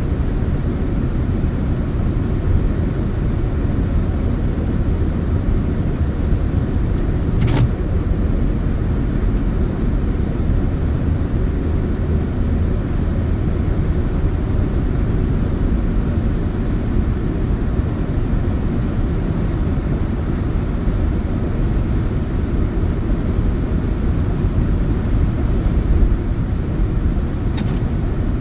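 Steady low rumble of a car driving on a wet road, heard inside the cabin: tyre and engine noise. A single sharp click about seven seconds in, and a fainter one near the end.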